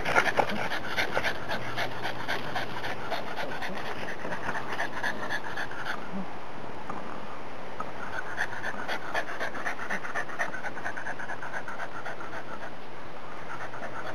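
A dog panting in quick, steady breaths.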